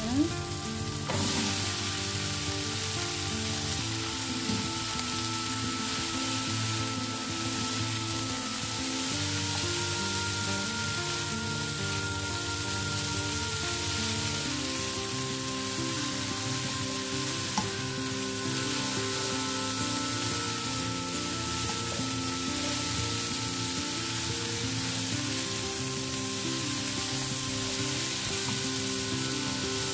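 Green beans and chilli spice paste sizzling in a hot wok as they are stir-fried, a spatula stirring and scraping through them. The sizzle grows louder about a second in, and the spatula knocks the pan once partway through, with soft background music underneath.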